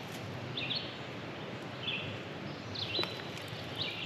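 A songbird calling: short high chirps repeated about once a second, over a steady faint background hiss.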